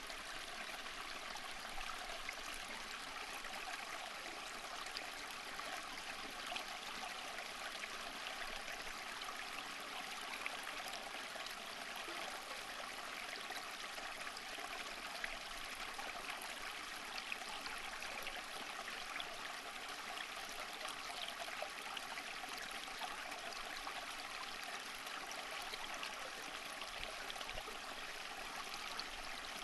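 Running water from a stream: a steady babble with fine splashing and trickling.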